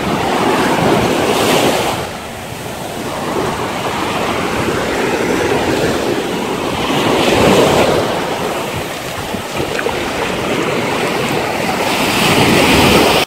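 Small sea waves washing up over a sandy shore, the wash swelling and easing several times.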